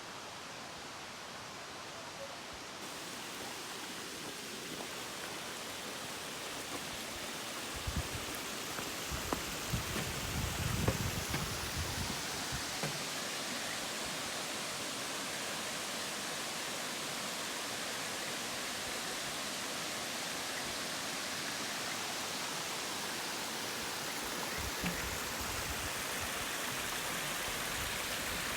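Steady rushing hiss of water, growing a little louder over the first several seconds, with a few low knocks and thumps around eight to twelve seconds in.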